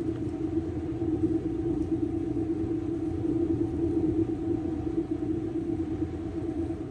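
Steady machine hum of commercial kitchen equipment, one constant mid-low tone over a low rumble.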